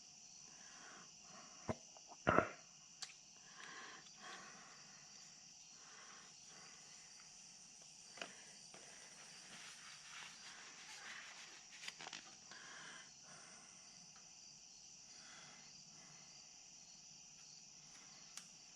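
Crickets chirping faintly and steadily, with a few light knocks and clicks, the loudest about two seconds in.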